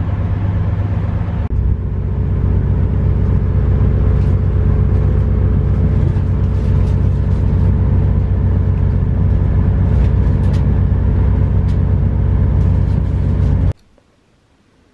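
Loud, steady rumble and drone inside the carriage of a CrossCountry diesel passenger train, with faint rattles; it cuts off abruptly near the end.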